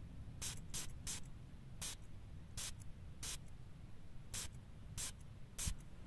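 Perfume pump sprayer giving a quick series of short hissing spritzes, nine in all, unevenly spaced, some in quick pairs and some with pauses of about a second between them.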